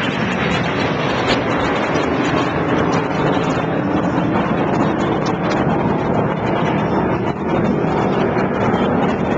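Loud, steady jet noise of Red Arrows BAE Hawk T1 jets flying low overhead, with a brief dip about seven seconds in.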